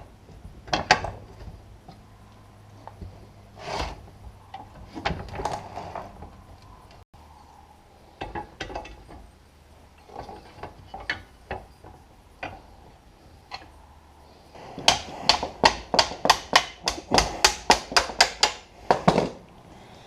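Hand-tool work on a metal tractor seat: scattered knocks and clicks, then near the end a quick, even run of about fifteen sharp taps, three or four a second.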